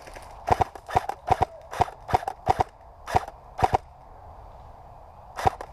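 Airsoft guns firing single shots in quick, uneven succession: about a dozen sharp cracks over three and a half seconds, then a pause and one more shot near the end.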